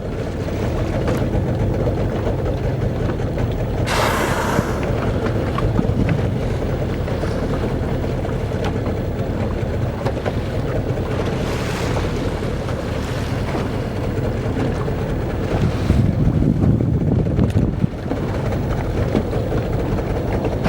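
Blue whale blowing: a sudden loud rushing exhalation about four seconds in, and a fainter rush near twelve seconds, over the steady low rumble of the boat and wind on the microphone.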